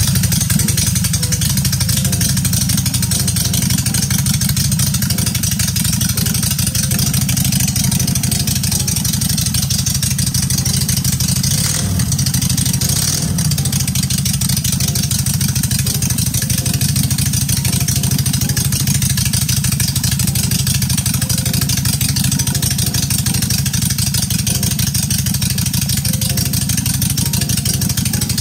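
Honda Shadow Ace V-twin engine running steadily, fed by a single carburettor freshly rejetted with new main and idle jets.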